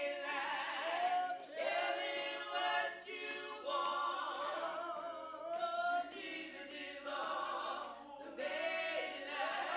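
A cappella gospel group singing in harmony, several voices and no instruments, in phrases that break off and start again every second or two.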